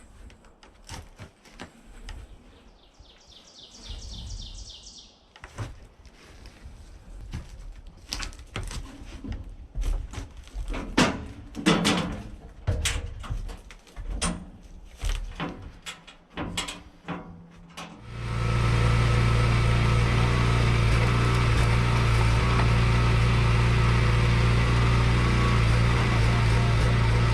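Scattered knocks and clattering, with a short chirping call about four seconds in; about two-thirds of the way through, a steady engine drone cuts in suddenly and keeps running, much louder than the knocks.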